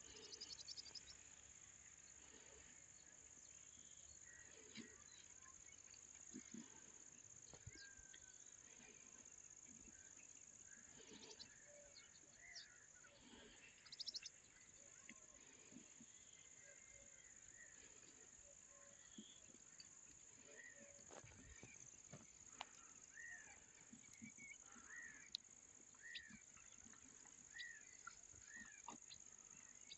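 Faint rural ambience: a steady high-pitched insect drone throughout, with a bird repeating a short arching call about once a second in the last third, and scattered small rustles and clicks.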